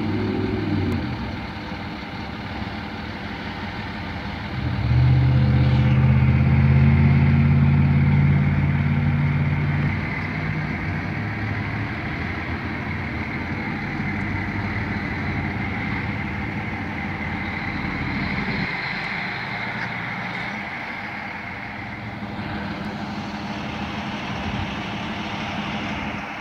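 Diesel engine of a Freightliner propane delivery truck idling steadily. About five seconds in, a louder, deeper engine drone comes up for about five seconds, then settles back to the idle.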